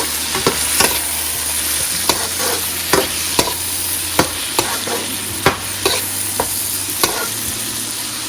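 Onions, tomatoes and spices frying in oil in a pan, sizzling steadily, while a utensil knocks and scrapes against the pan at irregular intervals, a little under twice a second, as the masala is stirred.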